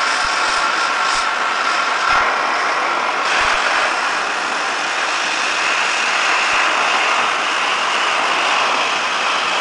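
Oxy-fuel cutting torch hissing steadily as it cuts through steel. About three seconds in the hiss gets louder and brighter as the cut throws sparks.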